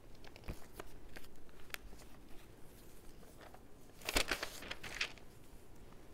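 Loose paper sheets handled and leafed through, with scattered light taps and rustles and a louder burst of paper crinkling about four seconds in.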